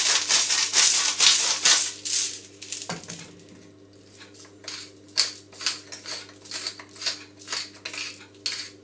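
Salt and pepper grinders being twisted over a plastic mixing bowl. There is a dense rasping grind for the first two seconds, then, after a pause, a run of sharp crunching clicks, two or three a second.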